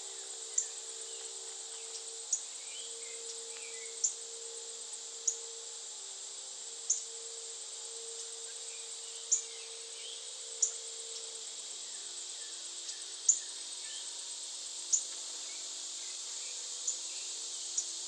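Steady high-pitched insect chorus of a summer field, with a sharp high chip note repeated about every one and a half seconds standing out above it, and faint twittering bird calls. A faint low hum drops in pitch about two-thirds of the way through.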